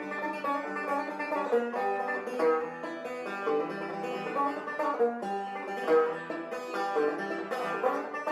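Banjo music: a quick, steady run of picked notes.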